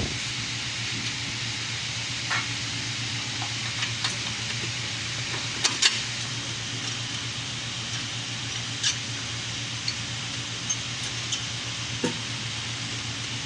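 A steady low hum with a hiss, and scattered light clicks and clinks over it, the sharpest about six seconds in.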